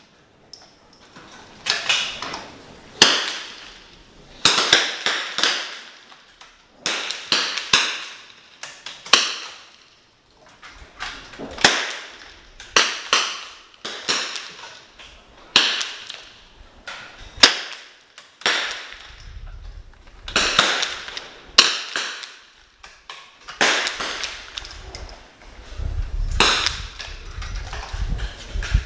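Many .22 rimfire benchrest rifles firing along a line, shot after shot at irregular intervals of about a second, sometimes two nearly together. Each shot is a sharp crack with a short echoing tail. A low rumble comes in twice in the second half.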